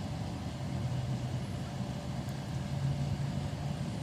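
Steady low hum of a running motor or engine, unchanging.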